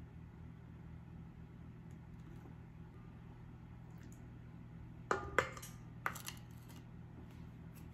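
Kitchenware clinking and clattering: a quick cluster of sharp knocks with brief ringing about five seconds in and another knock a second later, as a cup is handled at the stand mixer's bowl. A low steady hum lies underneath.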